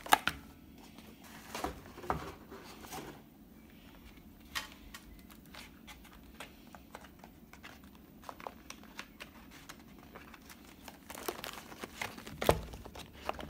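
Packaging being handled: cardboard inserts and plastic wrapping crinkling, rustling and knocking in scattered short sounds, busier near the end with one louder knock.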